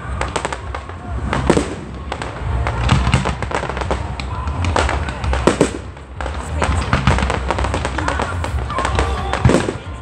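Fireworks display with aerial shells bursting in quick succession: a steady barrage of bangs and crackling over a low rumble.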